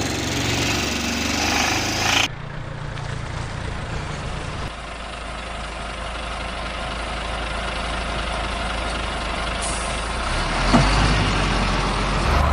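Truck engine sound running steadily; about two seconds in it cuts abruptly to a lower, quieter rumble that carries on.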